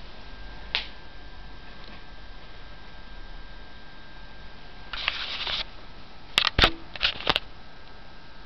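Camera handling noise: a single click, a short rustle about five seconds in, then a quick run of sharp clicks near the end, over steady hiss and a faint steady high tone.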